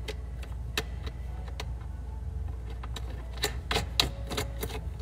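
Small, irregular metallic clicks and ticks of a nut and washer being turned by hand onto a fan mounting bolt, with the clicks coming thicker a little past halfway.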